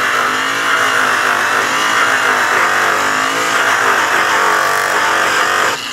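Makita electric angle grinder spinning a yellow airway buff against a polished aluminum truck wheel, running steadily with its pitch wavering as the buff is worked back and forth over the metal. The sound cuts off sharply near the end.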